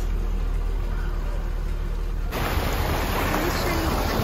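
Steady low rumble of a car driving, heard from inside the cabin; a little over two seconds in it cuts abruptly to the steady rushing of river water pouring over a small cascade.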